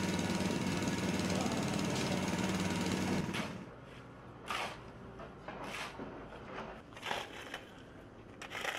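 A steady motor hum that cuts off about three seconds in, then a pickaxe striking into gravelly ground about four times, roughly once every second and a half.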